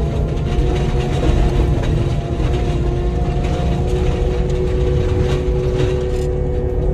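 Cat 299D3 compact track loader's diesel engine running hard with its forestry mulcher head spinning: a steady low rumble under a constant whine of several tones. The higher hiss eases slightly near the end.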